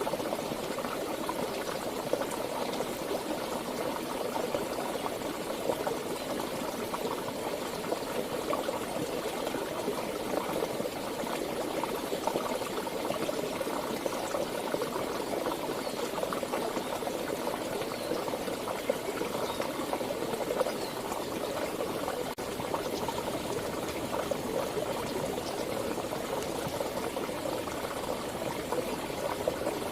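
Water flowing and bubbling steadily in a mountain stream, with an even gurgling rush.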